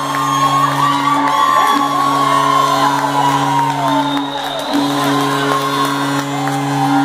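Rink goal horn sounding in long steady blasts, with short breaks between them, marking a goal, over a crowd cheering and whooping.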